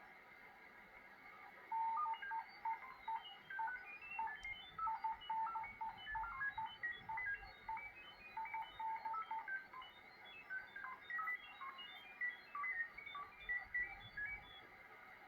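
Shortwave radio receiving a burst of rapid short beeps that jump between many different pitches like a quick melody, over a steady hiss. It starts about two seconds in and stops near the end; the uploader takes it for a possible data transmission.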